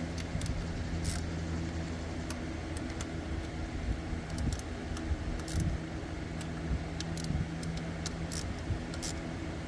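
Scattered light metallic clicks and taps of a hand tool on the ignition coil fasteners of a Ford Escape engine as they are tightened, over a steady low hum.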